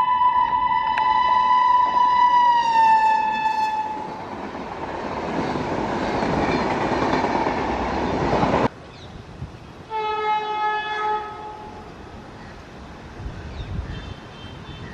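An electric locomotive's horn is held as the train approaches and drops in pitch as it passes. The coaches then roll past with a loud, steady rushing noise that cuts off suddenly. About a second later a Vande Bharat Express trainset sounds a shorter horn, for about a second and a half.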